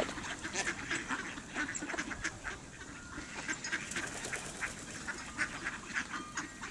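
A flock of mallards quacking in many short, overlapping calls as they feed on bread.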